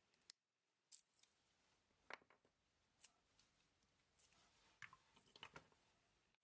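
Pliers nipping and breaking off thin wooden waste from around a cut-out wooden button: about eight quiet, sharp snaps and clicks at irregular intervals, several of them close together near the end.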